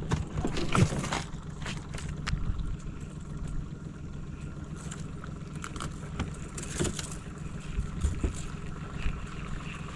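Steady low hum on a small aluminum fishing boat, with a few sharp knocks and clicks in the first second and again around seven to eight seconds in from rods and spinning reels being handled.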